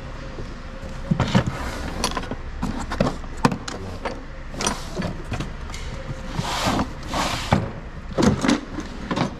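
Tools and metal parts clattering, with many sharp knocks and clicks, as someone rummages through a workshop's tool storage for a set of Torx bits. Two longer scraping slides come a little past halfway.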